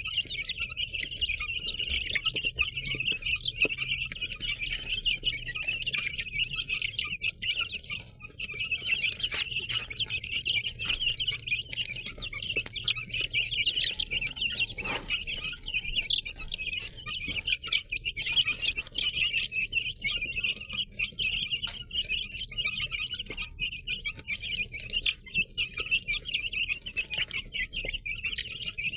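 A crowd of baby chicks peeping together, a dense, continuous high-pitched chatter of many overlapping calls.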